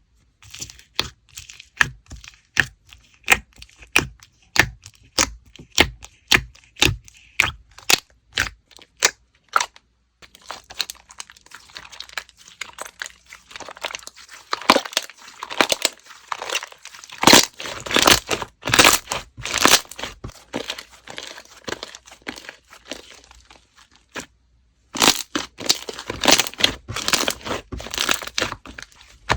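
Slime being pressed and poked by hand, making sharp pops at about two a second, then a denser run of crackling, with a short break near the end.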